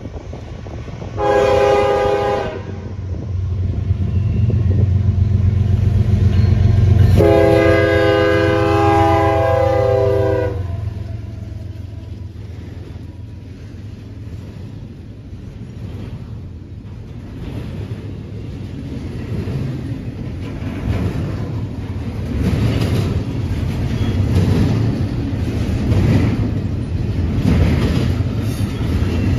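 GE ES44AH diesel locomotive's air horn sounds a short blast, then a long chord of about three and a half seconds, over the low rumble of the engine, which swells as the locomotive nears and passes. After it, the double-stack intermodal cars roll by with their wheels clacking rhythmically on the rails, growing louder in the second half.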